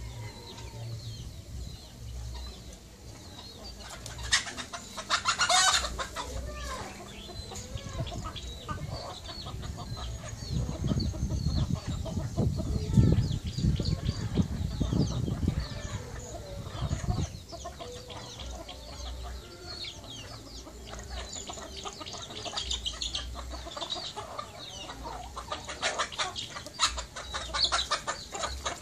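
Domestic chickens, roosters and hens, clucking and calling, with a dense flurry of calls around four to six seconds in and again near the end as a rooster goes after a hen. A loud low rumble runs through the middle stretch.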